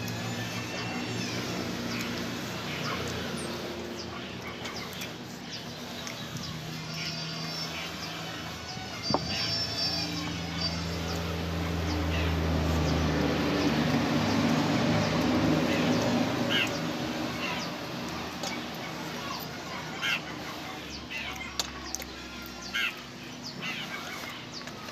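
Outdoor background sounds: birds chirping and chickens clucking, with scattered small clicks, over a steady low hum that swells about halfway through.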